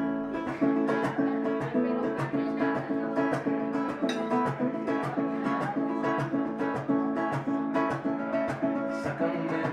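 Instrumental song intro: an acoustic guitar strumming chords in a steady rhythm, starting suddenly.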